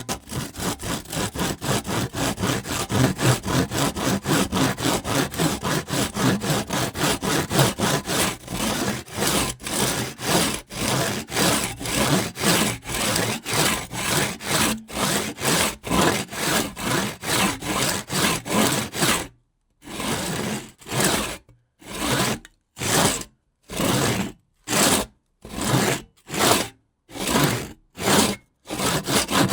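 Hand saw cutting through wood, rasping back-and-forth strokes at about three a second. About two-thirds of the way through, the strokes slow to separate strokes with short silent gaps between them.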